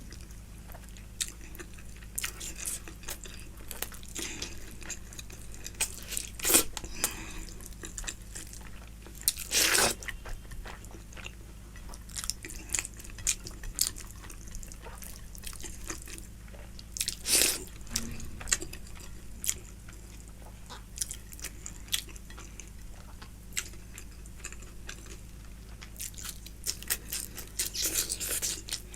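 Close-miked eating: chewing and crunching mouth sounds with scattered sharp clicks, and a few louder noisy bursts.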